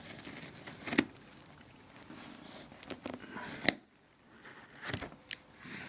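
A few sharp clicks and knocks, with light rustling between them, as a shipping package is handled and worked open by hand.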